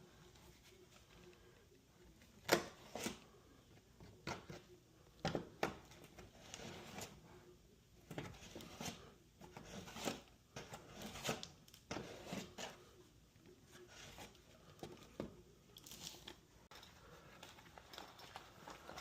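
Irregular scraping and crinkling handwork sounds: short scrapes and clicks at uneven intervals, the loudest about two and a half seconds in.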